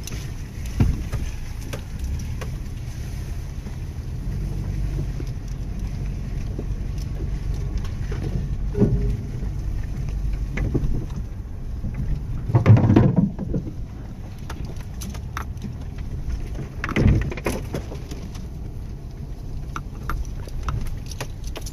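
Lifted Subaru wagon crawling along a rutted mud trail, heard from inside the cabin: a steady low rumble of engine and drivetrain, with a few louder bumps as the car lurches through ruts. The biggest comes about 13 seconds in and another about 17 seconds in.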